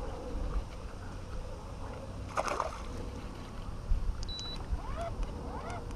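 Low wind rumble on the microphone over open water. Near the end come a few short calls that rise and fall in pitch.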